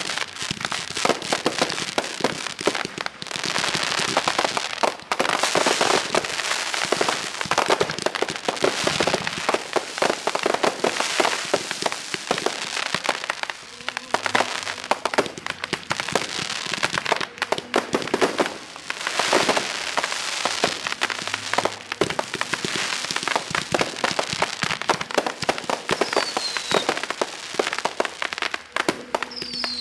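Aerial fireworks display: dense, continuous crackling and popping of bursting shells, swelling louder every few seconds. Near the end come two short falling whistles.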